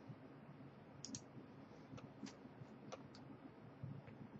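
Near silence with a few faint, scattered computer mouse clicks, the first about a second in and several more over the next two seconds.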